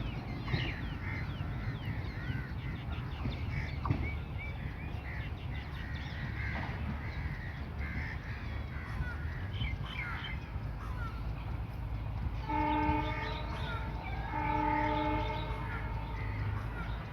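Birds chirping over a steady low rumble, then a train horn sounds two blasts of about a second each near the end.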